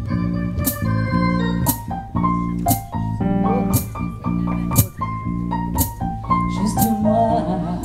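Live band playing an instrumental passage: organ-like keyboard chords held under a steady beat, with a sharp drum hit about once a second.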